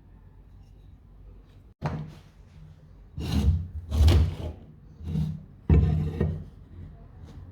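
Wooden workshop parts being handled: a knock, then four short rubbing, scraping strokes of wood on wood.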